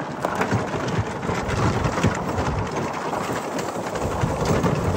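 Electric golf cart rolling over gravel: tyres crunching on the stones, a dense crackle over a low rumble.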